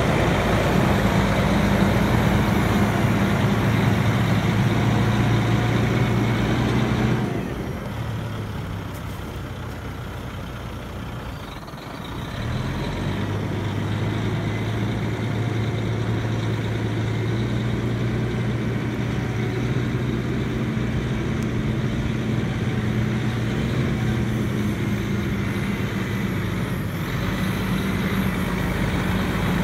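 Diesel engine of a heavy rollback tow truck running as the truck drives slowly around. It is a steady low drone that fades for about five seconds a quarter of the way in, then picks back up and stays steady.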